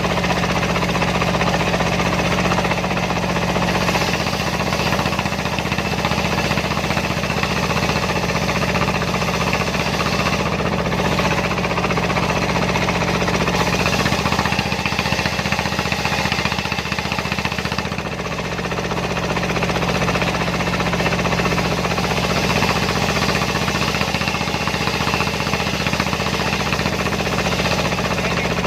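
Single-cylinder Dongfeng diesel engine running steadily as it drives a homemade circular-saw sawmill, with the engine's regular knocking beat under it. The sound dips slightly for a moment about two-thirds of the way through.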